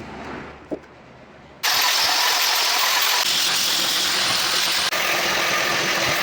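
An electric power tool running steadily at speed, setting in abruptly about a second and a half in after a quiet stretch with a single click.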